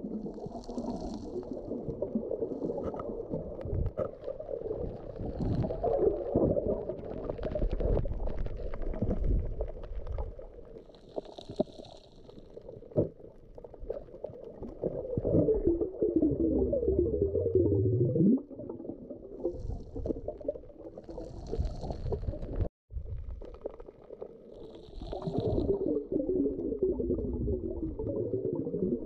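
Muffled underwater sound from a camera submerged while snorkeling: water sloshing and gurgling, with a few short hissing bursts of bubbles.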